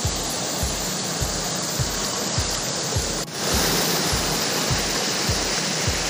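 Rushing water of a rocky mountain stream cascading over boulders: a steady full hiss that dips briefly about three seconds in, with a low regular pulse several times a second underneath.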